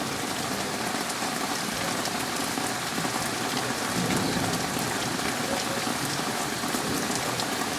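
Rain falling steadily during a thunderstorm, a constant hiss with faint scattered drop hits.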